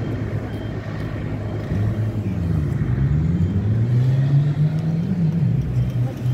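Street traffic, with a motor vehicle's engine running close by. From about two seconds in, its low engine note rises and falls in pitch and grows louder.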